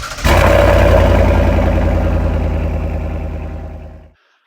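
An engine cranks briefly and starts, then runs steadily and fades out gradually until it stops shortly before the end.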